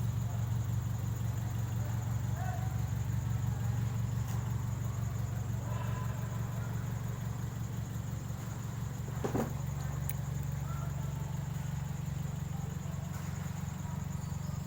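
Steady low mechanical hum with a constant high-pitched whine above it, and one brief sharp sound about nine seconds in.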